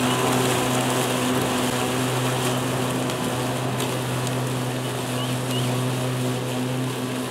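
PowerSmart 80V 26-inch dual-blade cordless electric lawn mower running and cutting grass with its side-discharge chute fitted. Its motors give a steady hum that fades slightly as the mower moves away.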